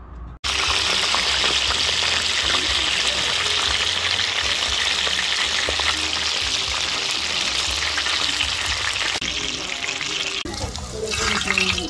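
Dumplings deep-frying in hot oil in a large steel disc pan: a loud, steady sizzle that starts abruptly about half a second in and thins out near the end.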